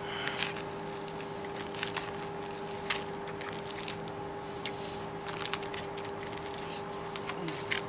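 Two people biting and chewing lemon pieces, tough unripe peel and all, giving scattered short mouth clicks and crunches over a steady hum.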